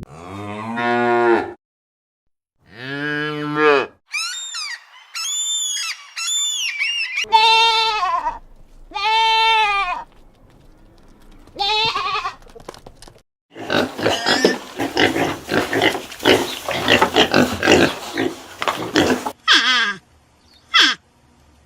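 A quick succession of different farm-animal calls, starting with two low cattle moos. High, arching calls follow, then a stretch of many animals calling at once and a few short falling calls.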